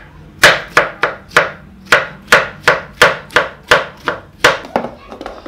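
Kitchen knife slicing a tomato on a plastic cutting board: a steady run of sharp cuts, about three a second, each ending as the blade hits the board. The cutting stops near the end.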